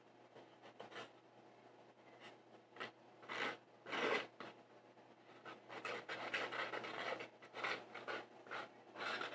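Slime ingredients being stirred in a container: irregular scraping and rubbing strokes, thickest in the second half.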